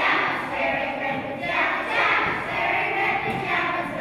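A group of children's voices chanting together in unison, in three or four long phrases with short breaks between them.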